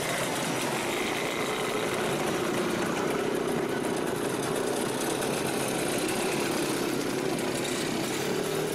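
Vintage Jawa and ČZ two-stroke motorcycles riding past one after another in a slow column. Their engines run steadily, with no sudden revving.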